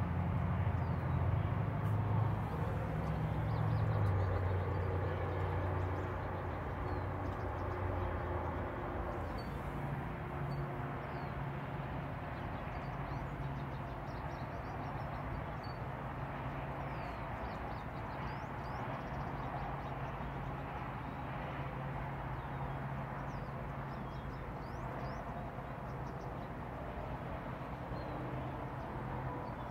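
A steady low mechanical hum, heavier for the first several seconds and then settling lower, with faint bird chirps scattered through.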